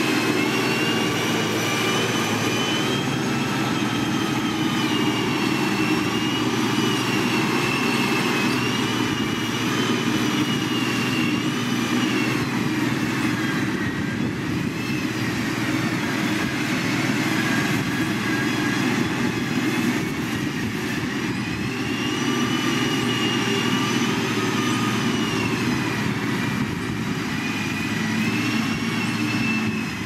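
Caterpillar motor grader's diesel engine running under load while it blades loose dirt, a steady low hum with a high whine that slowly rises and falls.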